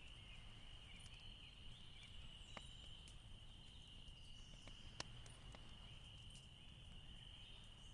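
Near silence: room tone with a faint, steady high-pitched whine and a few soft clicks.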